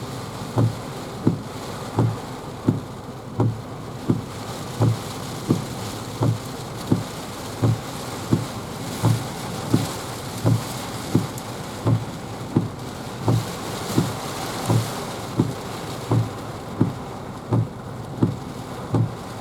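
Strong wind and rough sea from a typhoon swell, a steady rushing noise, with a low thump repeating about three times every two seconds.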